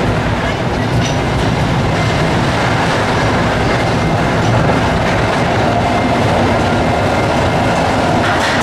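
Mine-train roller coaster climbing its chain lift hill: the lift chain and the train running with a steady, loud mechanical clatter.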